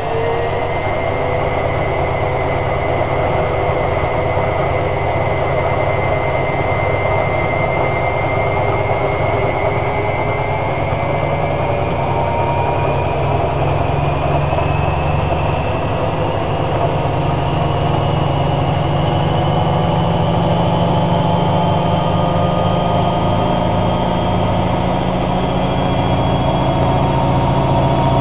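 Hoover Logic 1200 washing machine on its spin cycle. The motor whine climbs quickly at first, then keeps rising slowly and steadily over a low hum as the drum works up to speed.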